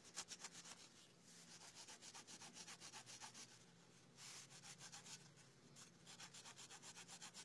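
Faint, quick back-and-forth rubbing of a paper towel on the edge connector of a Ford EEC-IV engine computer's circuit board, wiping the grease off the pins.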